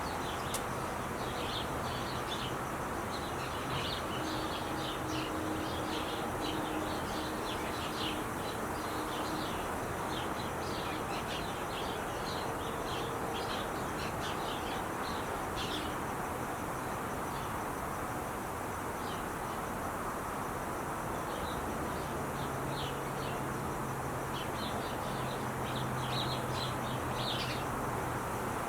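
Steady rush of freeway traffic, with small birds chirping quickly and repeatedly over it; the chirping stops for a few seconds past the middle and then resumes. A low steady hum joins the traffic near the end.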